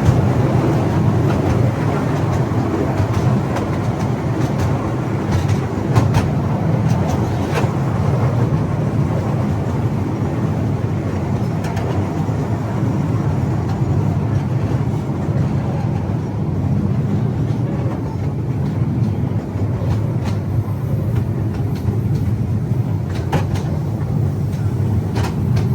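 Small sightseeing train running steadily, a continuous low rumble with a few sharp clicks scattered through it.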